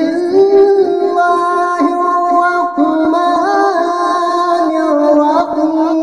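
A man singing in long, drawn-out held notes that step up and down in pitch, melodic and chant-like, with no spoken words.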